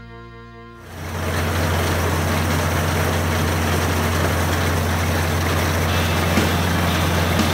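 Tractor engine running steadily under load while pulling a haybine mower-conditioner through standing hay. It is a constant low drone with a broad rushing noise over it, and it starts suddenly about a second in as background music fades out.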